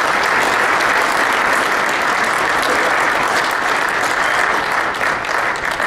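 Audience applauding: steady, dense clapping from a large crowd that starts to thin near the end.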